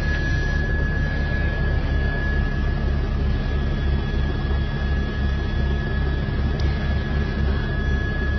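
Helicopter engine and rotor noise: a steady rumble with a rhythmic low beat from the rotor blades and a steady high whine.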